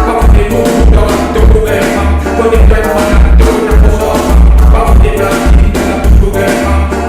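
Music: a rap track with a pulsing heavy bass and a vocal line over it.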